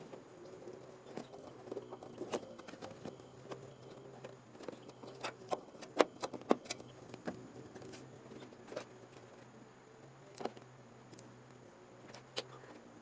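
Scattered light clicks and taps, a quick cluster of them about halfway through, over a faint steady hum.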